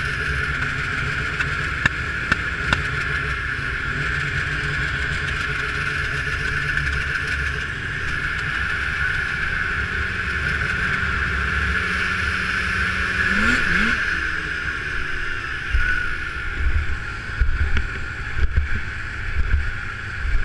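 Two-stroke race snowmobile engines idling together on a start line, with one engine revving up briefly a little past halfway and uneven low surges near the end.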